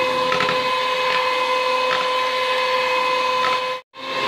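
Electric hand mixer running steadily on low speed, its beaters whisking a thin cucur batter of rice flour, wheat flour and palm-sugar syrup. A steady hum that cuts out for a moment near the end and picks up again.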